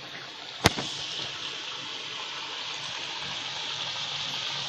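Onion bhaji (gram-flour-battered onion fritters) frying in hot oil in a kadhai: a steady sizzle. A single sharp click comes about half a second in, and the sizzle grows slightly louder after it.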